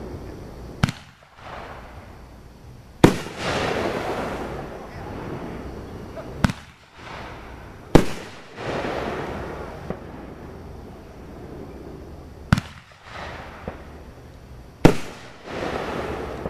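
Fireworks going off: six sharp bangs a few seconds apart, the louder ones trailing off over about a second.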